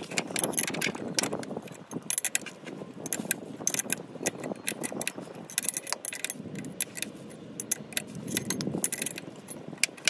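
Steel spanners clicking and clinking on the bolt of a sprocket press tool as it is turned, pressing a new timing-chain sprocket onto the crankshaft. The clicks come in irregular clusters with short gaps.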